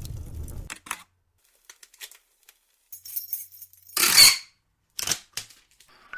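A string of short, separate sound-effect hits: a low rumble dying away, a few faint clicks and knocks, a louder clattering bang with some ringing about four seconds in, and a sharp knock about five seconds in.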